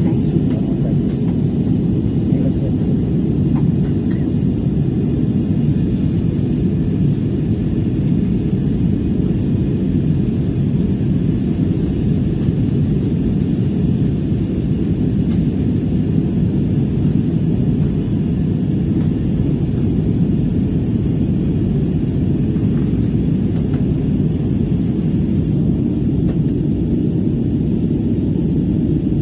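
Steady cabin noise of an Airbus airliner in flight: the even drone of the jet engines and rushing air, heaviest in the low range, holding level throughout.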